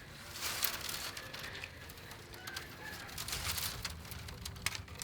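Birds calling in short chirps, over rustling and light clicking of bamboo strips being handled.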